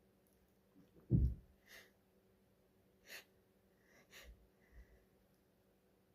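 A person breathing in sharply and shakily several times as a sneeze builds and stalls, a sneeze false start that the uploader puts down to hay fever. A low thump of breath on the microphone about a second in is the loudest sound.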